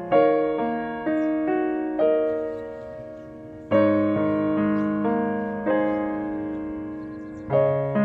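Background piano music: slow chords struck about every one to two seconds, each ringing out and fading before the next.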